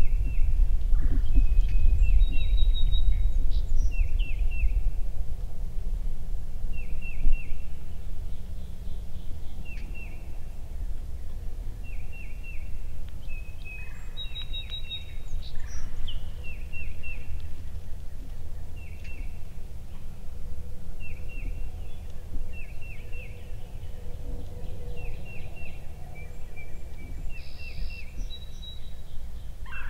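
Wind rumbling on the microphone, heaviest in the first third, under a small bird chirping short repeated phrases every second or two. A wild turkey gobbler gobbles about halfway through.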